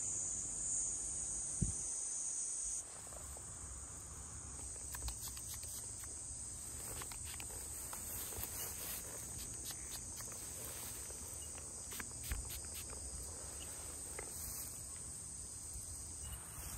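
A steady high-pitched insect chorus, with a louder layer that cuts off about three seconds in, over faint scattered ticks and rustles.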